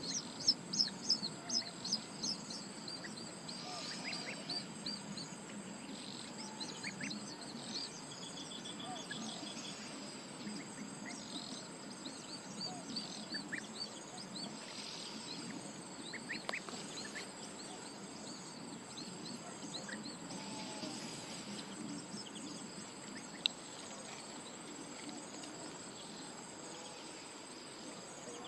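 Countryside ambience: small birds chirping, busiest in the first few seconds with a quick trill later, over a steady high insect drone.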